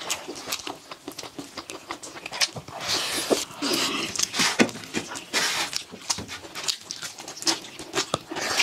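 Eating sounds of fried rice eaten by hand from steel plates: chewing and mouth smacks with many short, scattered clicks.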